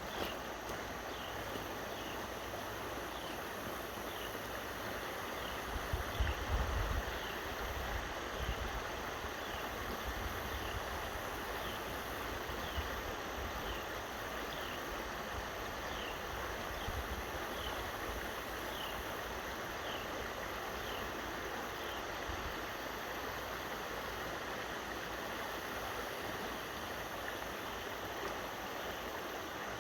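Creek water rushing steadily, with a few low rumbling bumps about six to eight seconds in. A faint high chirp repeats about once every second and a half through the first two thirds.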